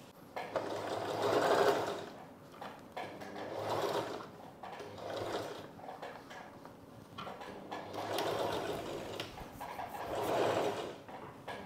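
Sewing machine stitching in several runs of a second or two each, with short pauses between, seaming the cut cup pieces of a katori blouse together.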